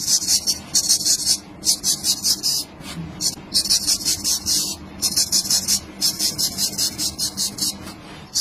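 Straight razor scraping short hair off a man's scalp in quick, short strokes: a crisp rasping that comes in runs of about half a second to a second, with brief pauses between runs.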